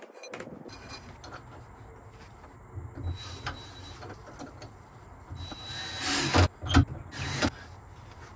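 Cordless drill driving screws into a wooden cabinet frame in three short bursts about six seconds in, with a few light knocks before.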